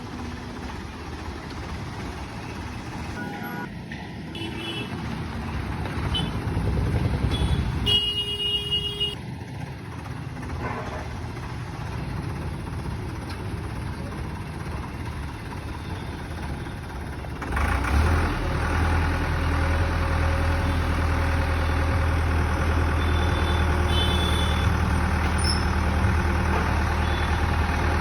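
Concrete mixer truck's diesel engine running. A little over halfway through it becomes a louder, steady low drone.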